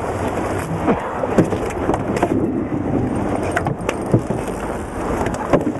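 A hooked red drum splashing and thrashing at the surface alongside a fishing boat and then landing on the deck, with several sharp knocks over a steady rush of wind and water.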